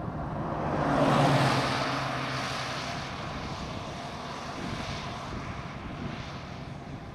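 Car driving on a wet highway: steady road and tyre noise, with a rush of a passing vehicle that swells to a peak about a second in and then fades.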